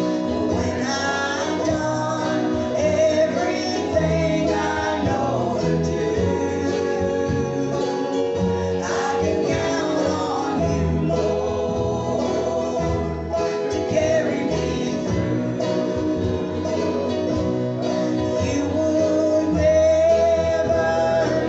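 Live gospel group singing a song with guitar accompaniment.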